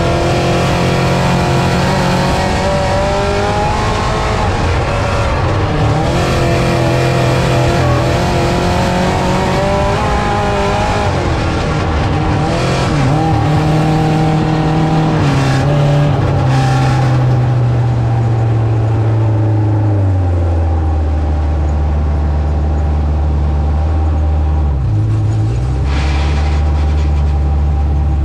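Dirt-track race car engine revving up and down as it runs laps. About twenty seconds in, it drops to a lower, steadier speed, with a brief dip in pitch near the end.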